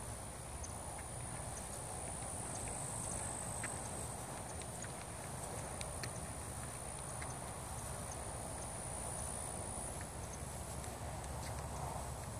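Outdoor ambience: a steady high-pitched thin whine over a low rumble, with faint scattered clicks.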